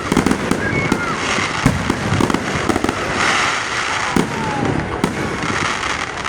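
Aerial fireworks show in full swing: shells bursting in rapid, overlapping booms and crackles, with a few brief whistles among them.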